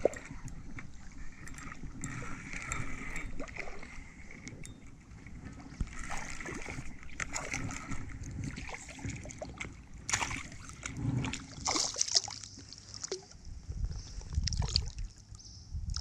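Shallow creek water splashing and gurgling in short, irregular bursts.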